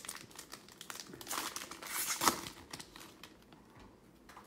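Foil wrapper of a trading-card pack being torn open and crinkling, loudest about two seconds in, then fading to light handling of the cards.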